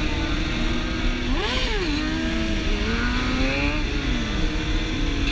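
Several sport motorcycle engines running together at road speed, their pitches rising and falling with the throttle. One engine revs up sharply and drops back about a second and a half in.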